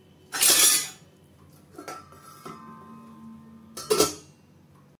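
Glass pot lid with a steel rim being handled and set onto a steel kadhai: a loud brief rushing noise near the start, then clinks that leave a metallic ring hanging, and a sharp clank about four seconds in as the lid goes on.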